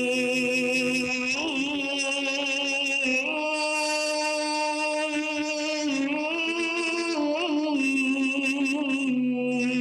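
A man reciting the Quran in melodic style, drawing out the basmala ("ar-Rahman ... ar-Rahim") in one long melismatic line. His voice holds each note, then steps to the next with small wavering ornaments.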